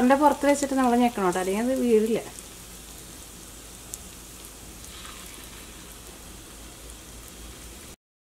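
Vada batter frying in a kadai of hot oil, a steady sizzle as batter pieces are dropped in; a person's voice is heard over it for the first two seconds. The sound cuts off abruptly near the end.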